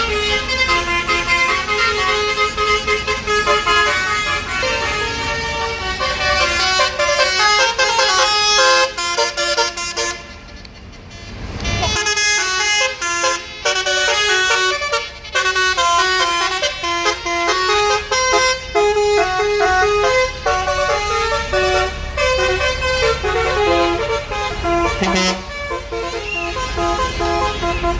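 Bus's roof-mounted basuri telolet horn set, a cluster of air-horn trumpets, playing a fast stepped tune. It breaks off briefly about ten seconds in, then carries on.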